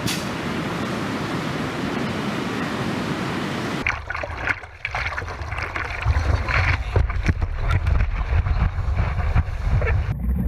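Ocean surf breaking, a steady rush of noise. After about four seconds it gives way to wind buffeting a microphone close to the water, with splashing as a wave's white water washes over.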